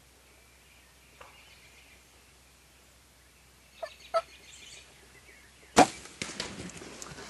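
Bow shot at a wild turkey: a sudden sharp crack about three-quarters of the way in, followed by about a second and a half of crackling and rustling. A little before it come two short sharp notes.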